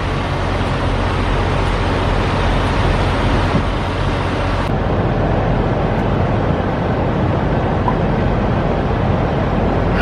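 Steady rumble and hiss of a semi-truck's engine and running noise heard from inside the cab. The hiss thins slightly about halfway through.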